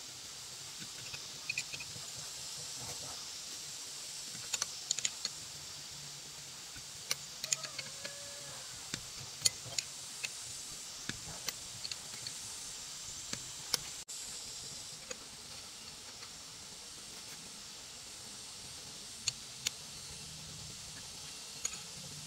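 Scattered sharp metallic clicks and taps of a steel wrench working the hub nuts of a truck wheel, irregular and a few per second at most, over a steady high hiss.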